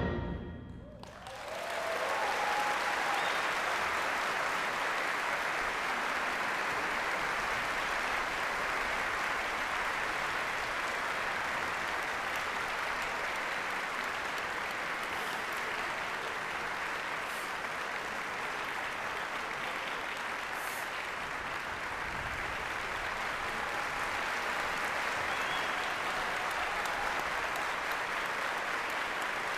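The band's final chord dies away in the hall's reverberation, and about a second in a concert audience starts applauding, clapping steadily.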